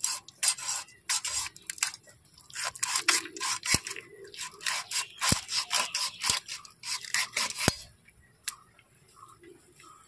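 Blade sawing and scraping through a skinned mud eel (kuche) to cut off its head: quick rasping strokes with a few sharp clicks, stopping about eight seconds in.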